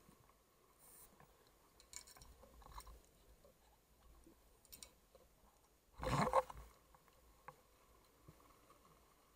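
Underwater audio from a scuba dive: a burst of exhaled regulator bubbles about six seconds in, the loudest thing heard, with faint scattered clicks before it and a faint steady hum underneath.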